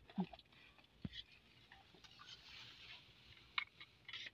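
Faint rustling with scattered small clicks and taps: a plastic bag being handled and tall grass brushing against a person moving through it.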